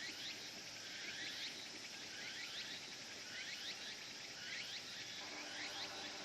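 Cicadas calling in a faint chorus: a steady high hiss with short, downward-sliding chirps repeating about twice a second.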